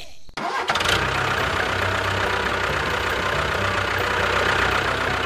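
A motor or engine starts abruptly about half a second in and then runs steadily with a low hum.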